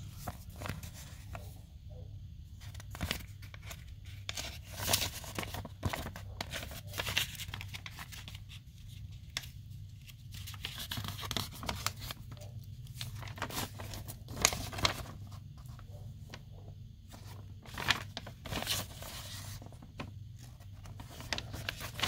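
Paper rustling and crinkling in irregular strokes as a folded instruction sheet is handled and unfolded, over a faint steady low hum.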